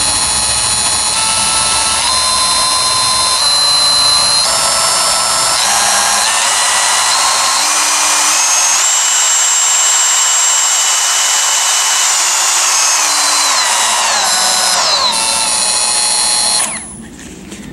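DeWalt brushless electric die grinder spinning free with a high whine. Its pitch steps up in stages as the speed dial is turned up, holds, then steps back down before the motor cuts off quickly near the end.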